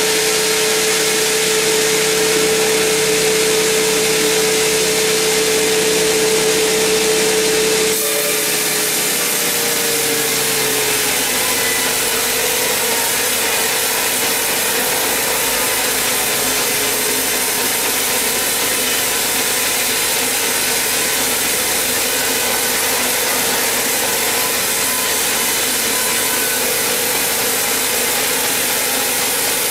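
Large band sawmill cutting lengthwise through a huge mahogany log: a steady, loud blade-and-motor hum under continuous sawing noise. About eight seconds in the hum drops a little in pitch and settles lower.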